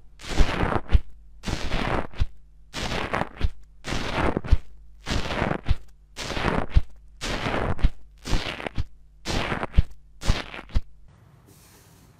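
ASMR close-up of a material being worked by hand (slime or soap, as in this compilation): about ten noisy strokes at roughly one a second, each with sharp clicks, stopping shortly before the end.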